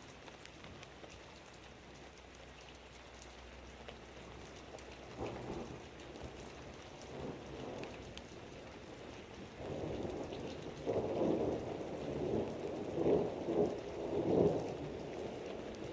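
Steady rain with thunder rumbling in about five seconds in, building in several rolling swells that peak near the end.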